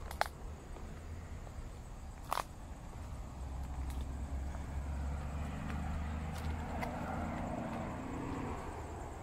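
Road traffic rumbling in the distance, swelling for a few seconds as a vehicle passes and then easing off, with a few sharp clicks near the start.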